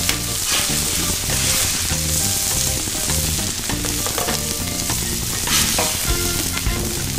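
Birria queso tacos sizzling on a hot Blackstone steel griddle, with a metal spatula scraping and tapping on the flat-top a few times as they are lifted off. Background music plays under it.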